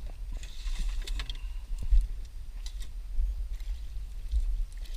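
Low uneven rumble with scattered light clicks and knocks, the loudest knock about two seconds in: the sounds of handling fishing tackle on a small boat while a fish is brought in.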